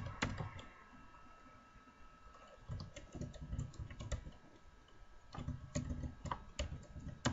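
Typing on a computer keyboard: scattered key clicks, a few at the start, a sparse handful in the middle, then a quicker run of keystrokes over the last couple of seconds.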